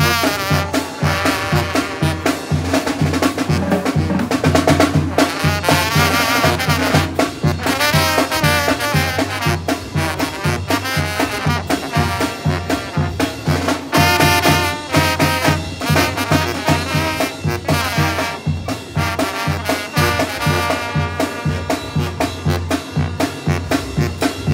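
Tamborazo band playing live: trumpets and trombones carry the melody over a sousaphone bass line, while the tambora bass drum and snare keep a steady beat.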